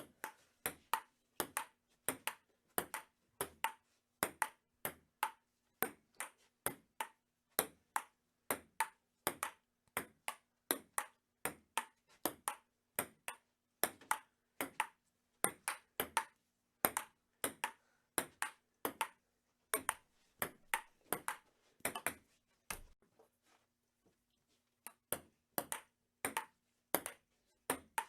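Table tennis rally: a ping-pong ball clicking sharply back and forth between paddles and table, about two hits a second. The hits stop for about two seconds roughly three-quarters of the way through, then play starts again.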